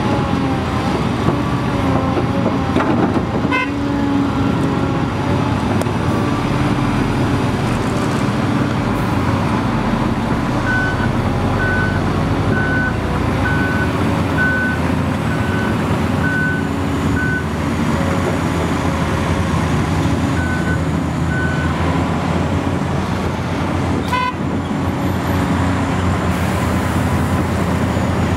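Heavy diesel engine of a Komatsu PC800LC hydraulic excavator running steadily under load, mixed with the engines of dump trucks working alongside. From about a third of the way in, a back-up alarm sounds a string of short, evenly spaced beeps at one pitch for about seven seconds, then beeps twice more a little later.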